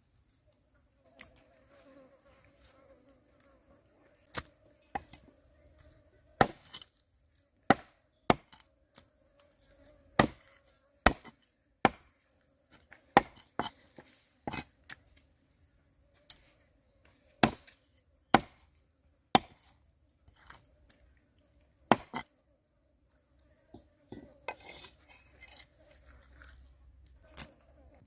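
Cleaver chopping skinned water snakes into pieces on a wooden stump chopping block: sharp, irregular chops, roughly one every second or so, with gaps between them. A steady insect buzz runs underneath.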